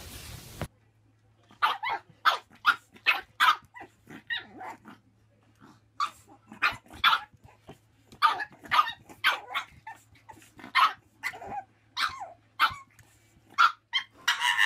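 A pug barking over and over in short, sharp barks, about two a second, coming in uneven runs with brief pauses.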